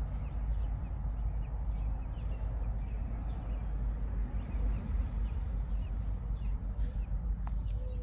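Steady low wind rumble on the microphone, with faint, short, high chirps of small birds repeating a few times a second and a few soft clicks.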